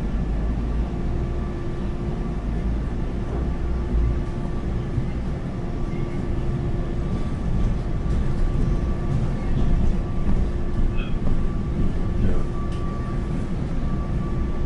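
Inside a moving passenger train: steady rumble of the wheels on the rails under a constant hum. About ten seconds in, a few short squeals and clicks come through as it rolls over a set of switches.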